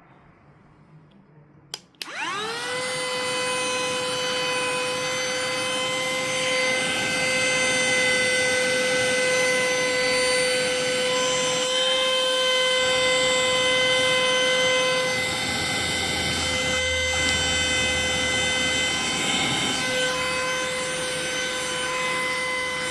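Yelmo vacuum cleaner switched on with a click about two seconds in, its motor spinning up in a quick rising whine and then running steadily with a high-pitched whine over a rushing airflow.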